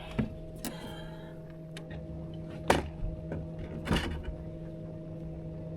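Steady machine hum aboard a bass boat, with a few sharp knocks and clatters; the loudest knock comes almost three seconds in and another about four seconds in.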